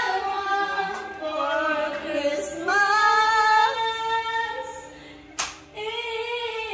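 A woman singing solo into a handheld microphone, sliding between notes and holding some long ones.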